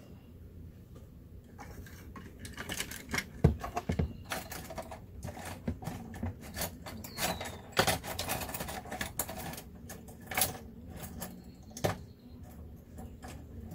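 Small hand tools clinking and clattering while being rummaged through for a sculpting tool: irregular light clicks and rattles starting about two seconds in, with sharper knocks near the middle and end.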